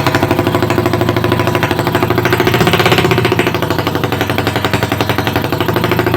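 Motorcycle engine idling through an aftermarket exhaust, a steady, rapid chain of exhaust pulses.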